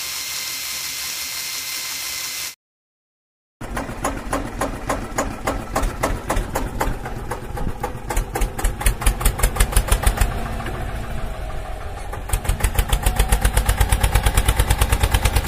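Tractor engine chugging in fast, regular beats, growing louder after about twelve seconds. It follows a steady hiss at the start that cuts off abruptly, then a short silence.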